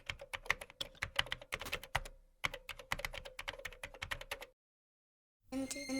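Typing: rapid, irregular key clicks with a brief pause about two seconds in, stopping about a second and a half before the end. Music starts near the end.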